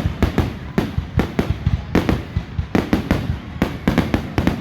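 Fireworks and firecrackers going off in a rapid, irregular string of sharp bangs, several a second.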